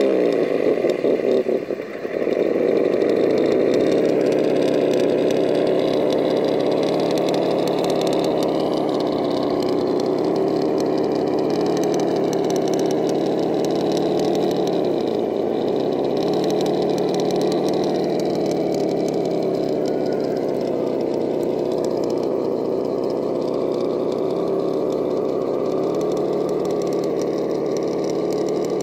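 Vaterra Ascender RC rock crawler's electric motor and geared drivetrain running steadily at crawling speed, a steady hum with a whine over it. The pitch wavers slightly as the truck climbs the rock, and the sound is uneven for the first couple of seconds.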